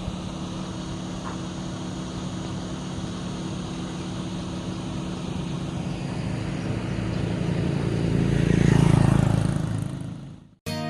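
A motor vehicle's engine running steadily, swelling louder as a vehicle passes close about nine seconds in, then fading away. The sound cuts off abruptly near the end.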